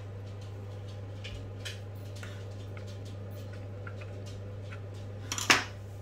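Small ticks and taps of a hex driver turning a screw into the plastic chassis of a Traxxas Maxx RC truck, with a louder clatter near the end, over a steady low hum.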